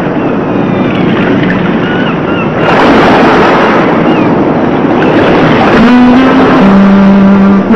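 Ocean surf washing in a steady rush that swells louder about three seconds in, with a few short high gliding cries over it. Held musical notes, stepping between two pitches, come in about six seconds in.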